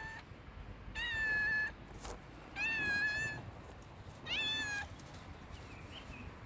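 Stray cat meowing: three drawn-out meows, each under a second long and about a second and a half apart, with the end of another meow right at the start.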